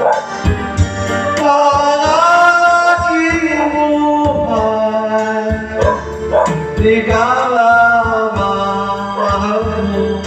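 A man singing a Tagalog ballad into a videoke microphone over a backing track, holding long notes over a steady beat.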